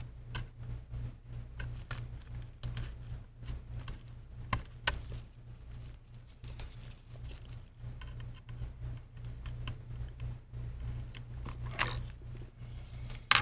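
Small irregular crackles and clicks of adhesive tape liner being peeled off and handled with gloved fingers, with a sharper click about five seconds in and another near the end, over a low steady hum.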